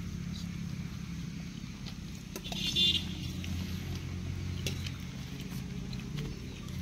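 Steady low hum of an engine running throughout, with a brief high-pitched chirp about two and a half seconds in.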